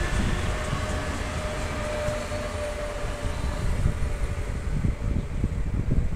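Renfe Series 447 Cercanías electric multiple unit pulling out of the station, its traction motors giving a steady whine that fades away about three seconds in. Gusty wind rumbles on the microphone throughout.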